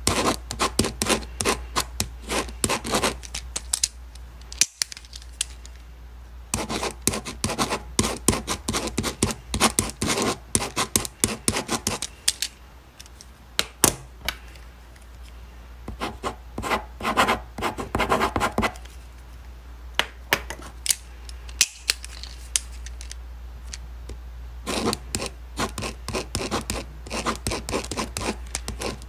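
Ballpoint pen writing on paper: quick scratchy strokes in bursts lasting a few seconds, with short pauses between them.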